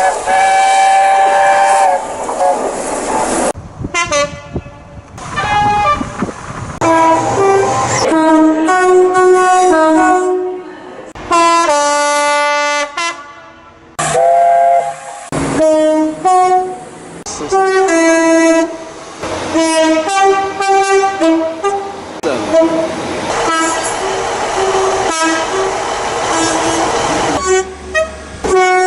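British train horns, one clip spliced after another: mostly two-tone horns sounding quick alternating high and low notes, with one long steady blast about halfway through. Rumble of passing trains sits under some of the blasts.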